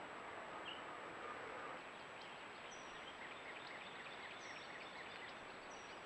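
Daytime outdoor ambience through a trail camera's microphone: a steady hiss with small birds chirping. In the middle there is a quick run of about five short repeated chirps a second, and a few brief higher notes are scattered through it.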